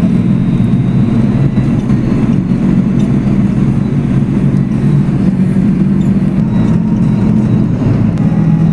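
Steady car engine drone and tyre noise, heard from inside the cabin while driving along a wet road.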